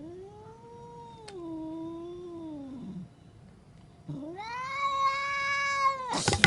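Angry domestic cat yowling: two long drawn-out caterwauls, the second higher and louder, then a sudden loud hiss near the end.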